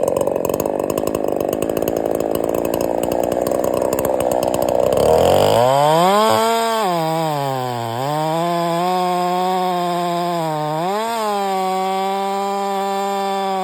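Ported Holzfforma 372G two-stroke chainsaw with square-ground chain cutting wood for about five seconds. Then a steady pitched drone takes over, dipping in pitch twice before holding level.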